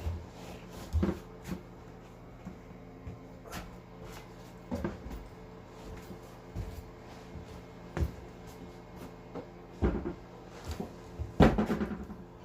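Scattered knocks and bumps as a rower seat is handled and worked into place in a drift boat, with a louder run of knocks near the end.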